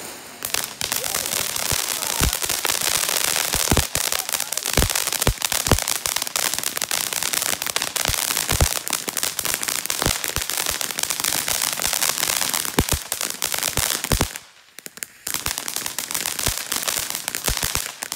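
Ground fountain firework spraying sparks: a loud steady hiss packed with rapid crackling pops. It falls quiet for a moment late on, then starts spraying and crackling again.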